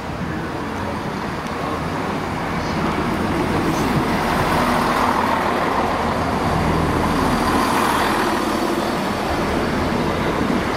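Class 170 Turbostar diesel multiple unit running slowly past at close range: the diesel engine and the wheels on the rails grow louder about two seconds in, then hold steady.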